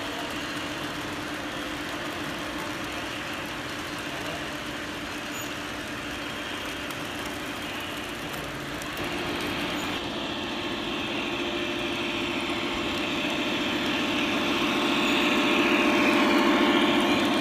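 O scale three-rail model trains running: a steady rumble of wheels on the track and motor hum, with diesel engine sound from the locomotives' onboard sound systems. It grows louder from about halfway through as a train passes close, loudest near the end.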